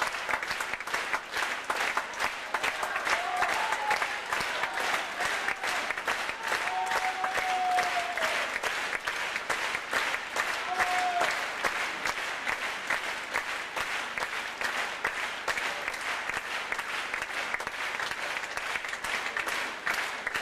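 Theatre audience applauding, dense and steady clapping.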